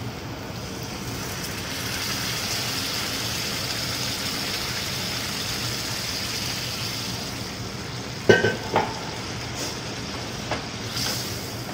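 Hot fried masala sizzling in a non-stick kadai as water is poured in and stirred with a wooden spoon. The steady hiss grows stronger a couple of seconds in. About eight seconds in there is a sharp knock, most likely the spoon against the pan.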